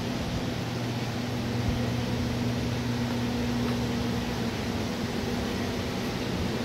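Steady machine hum over an even airy hiss, like an electric fan or ventilation motor running, with one light knock a couple of seconds in.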